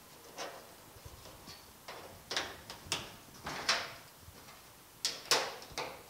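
Locking welding clamps being set and snapped shut on the sheet-metal edges of a door patch panel: a string of short metallic clicks, scrapes and clanks, about eight in all, the loudest about five seconds in.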